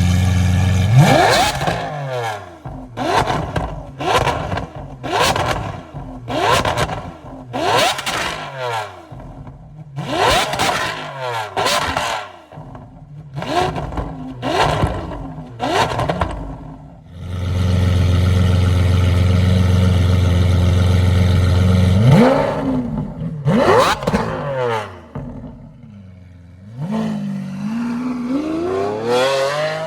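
Lamborghini Aventador SVJ's V12 through a titanium double-X-pipe exhaust being revved: about a dozen quick throttle blips, each a sharp rise and fall in pitch, then a steady high-rpm hold for about five seconds. The engine then drops back, followed by a couple of slower revs near the end.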